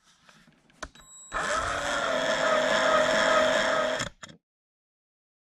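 Electric drill boring out the old wooden handle stuck in the eye of a sledgehammer head. It spins up about a second in, runs steadily under load with a clear motor whine for about three seconds, then stops abruptly.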